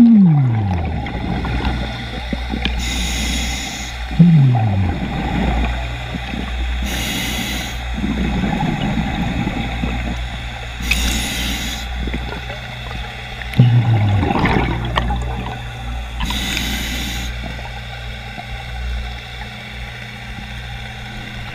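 Scuba diver breathing underwater through a regulator: a hiss on each inhale about every four seconds, and loud gurgling bursts of exhaled bubbles that sink in pitch, heard through the camera's underwater housing. A steady low hum lies underneath.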